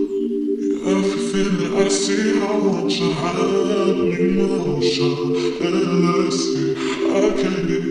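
Music with singing voices over a steady held chord.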